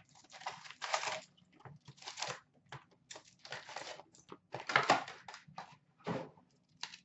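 Paper and foil-wrapped trading-card packs rustling and crinkling in irregular bursts as a hobby box is emptied, with a few light knocks as the packs are set down on the glass tabletop.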